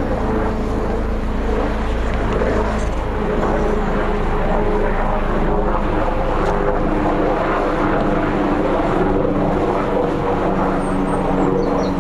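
Steady engine drone with several held tones that slowly shift in pitch, over a wash of outdoor noise.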